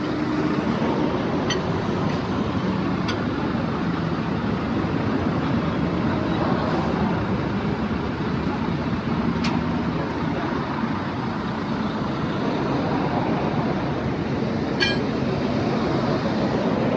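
Steady vehicle rumble, with a few short sharp clicks scattered through it.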